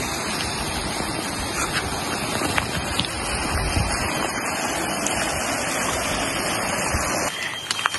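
Steady rushing of flowing water from a stream or waterfall, which drops away shortly before the end.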